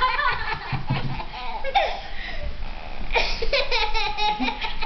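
Toddler's belly laughter in repeated bursts, with a run of quick rhythmic laugh pulses about three seconds in.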